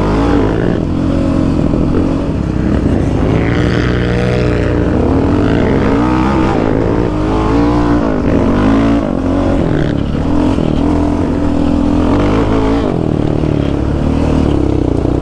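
Sport quad's engine revving hard under riding, its pitch climbing and dropping every second or two as the rider works the throttle.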